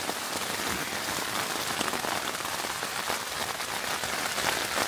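Heavy rain beating on the fabric of a Fire Maple tent, heard from inside: a dense, steady patter of countless drops, really loud.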